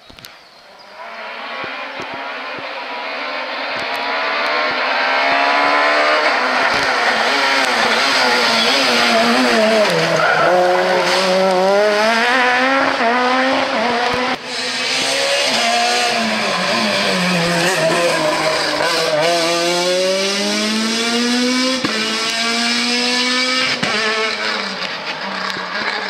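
Peugeot 207 S2000 rally cars' naturally aspirated four-cylinder engines at full throttle on a stage, passing close by. The revs climb and drop repeatedly as the drivers shift and lift for corners, and after a sudden break about halfway through a second car passes in the same way.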